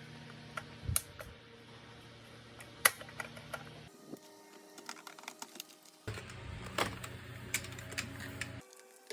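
Irregular small clicks and taps of plastic parts and tools being handled during work on a cordless vacuum cleaner, over a low steady hum. The hum drops out abruptly about four seconds in and returns about two seconds later.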